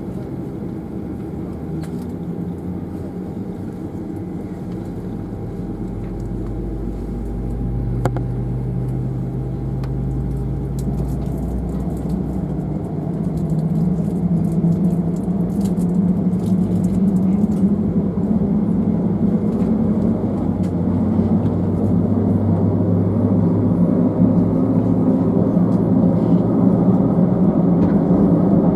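Airbus A319-111's CFM56 jet engines heard from inside the cabin, a steady rumble that grows louder and rises in pitch over the stretch, as with engines spooling up for the take-off roll.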